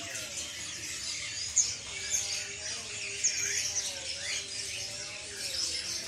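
Many caged songbirds chirping and whistling at once, short overlapping calls with no single bird standing out.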